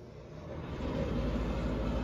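Bathroom exhaust fan spinning up just after being switched on: its hum rises over about the first second, then runs steadily.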